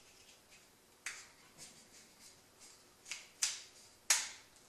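A Jenzi Miyako BC baitcasting reel clicking and scraping as it is handled while the spool goes back into the housing and the side cover is fitted. Several short, sharp clicks, the loudest about four seconds in.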